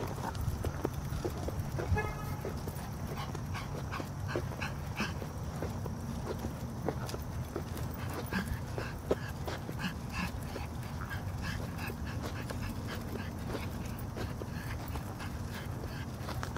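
Pug's paws and nails clicking and scuffing lightly on pavement as she moves along in her dog wheelchair, many small irregular taps, with a brief squeak about two seconds in.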